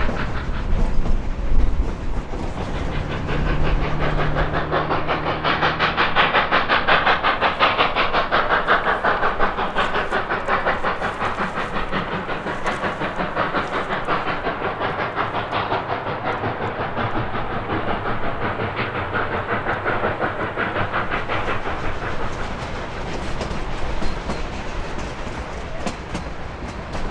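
Double-headed narrow-gauge steam train working uphill on a mountain grade: a fast, steady rhythm of exhaust beats and wheel clatter.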